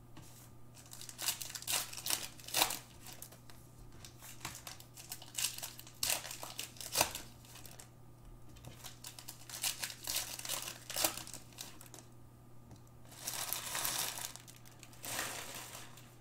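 Crinkling and rustling of plastic trading-card pack wrappers and cards being handled on a table: many short sharp rustles and clicks, with two longer stretches of crinkling about thirteen and fifteen seconds in.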